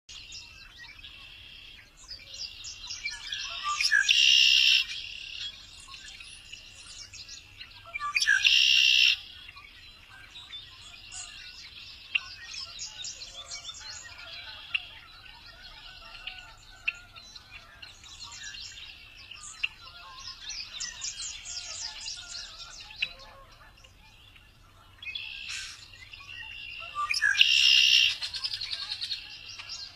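Male red-winged blackbird singing: three loud, buzzy trilling songs about a second long, around four seconds in, around eight seconds in and near the end, with softer chirps and chatter in between.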